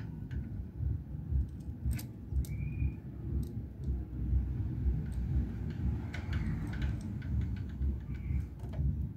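Scattered light metallic clicks and clinks of small parts and tools being handled, over a steady low rumble.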